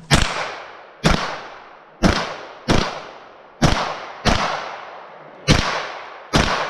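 Eight gunshots fired at an uneven pace, roughly a second apart with some closer pairs. Each shot is a sharp crack that rings out and fades.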